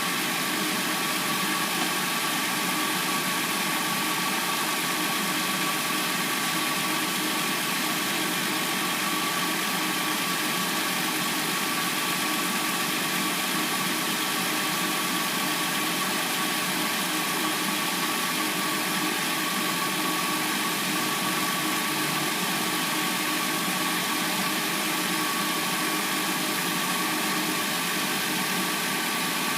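Hyundai Sonata replacement engine idling steadily while warming up after a cold start.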